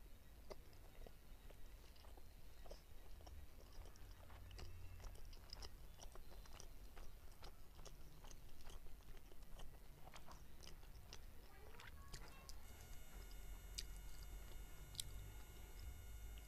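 Faint close-up chewing and wet mouth clicks of someone eating soft steamed momos. About three-quarters of the way in, a steady high-pitched whine comes in and continues.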